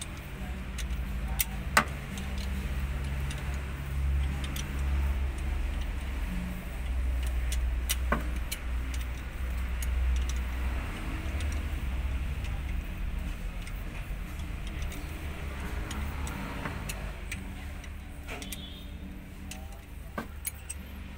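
A steady low engine-like hum, with a few sharp metallic clicks and clinks from a socket turning an old cylinder-head bolt that is used as a tap to chase damaged threads in an engine-block bolt hole.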